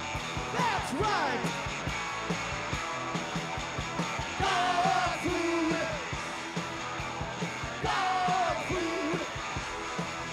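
Live punk rock band playing: electric guitars, bass guitar and drums, with a male lead singer yelling and singing short phrases every few seconds.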